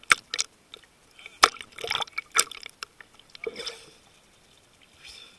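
Seawater splashing and slapping against a camera at the sea surface as it dips in and out of the waves: a run of irregular splashes and drips, busiest between about one and three seconds in, then quieter.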